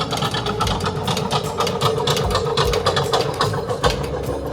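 Old-time steam engine display running with a rapid, even mechanical clatter over a steady hum, with a few low thumps.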